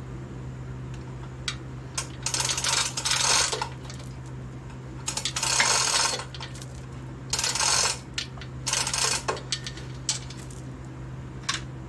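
Metal bolts and hand tools clinking and rattling in several short bursts with scattered clicks between, as bolts are fitted to fasten an engine to an engine stand.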